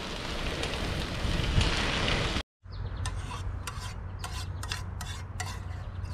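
Steady rushing ride noise from a bicycle moving along a path. After a sudden cut about two and a half seconds in, a spoon scrapes and clinks against a metal camping pot in quick, irregular strokes.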